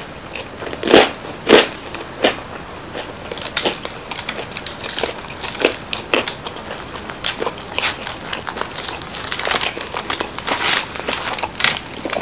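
Close-miked chewing of crispy deep-dish pizza crust, with a few sharp crunches in the first couple of seconds. After that come many small crackles as the crisp crust is torn by hand and a slice is pulled out of the pie, busiest near the end.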